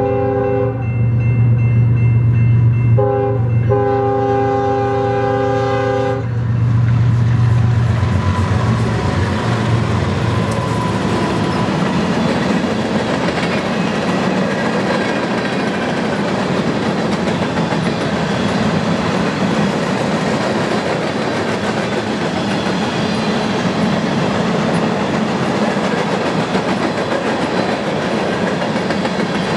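BNSF GE ES44DC diesel-electric locomotives sounding their air horn for the grade crossing: a blast, a brief break, then a long blast that stops about six seconds in, over the deep rumble of the diesel engines passing. Then a long string of covered hopper cars rolls by with steady wheel-on-rail noise and clatter.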